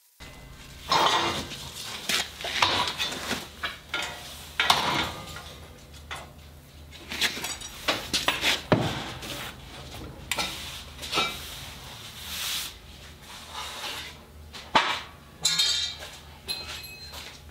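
Steel plate and angle being handled and clamped on a steel welding table: irregular clanks and clinks of metal on metal, with locking C-clamps snapping on.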